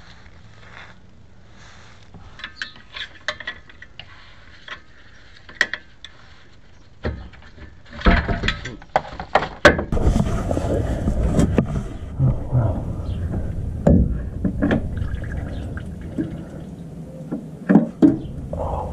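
Hand work under a truck: scattered light clicks and taps of tools and parts. About eight seconds in, a loud, dense stretch of scraping and rustling begins, with sharp knocks in it.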